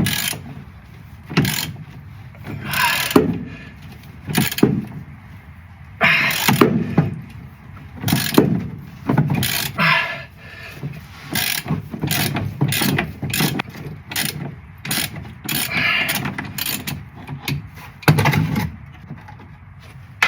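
Hand tool working a pedal-box mounting bolt loose on a Porsche 356: a string of irregular metal clicks and short rattling bursts, coming faster near the middle.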